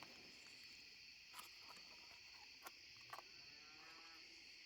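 Near silence: a faint steady high-pitched hiss with a few soft clicks.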